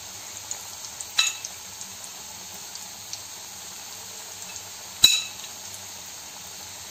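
Breaded chicken pieces deep frying in hot oil, a steady sizzle with two sharp clicks, the louder one about five seconds in. The flour coating is cooking toward golden brown.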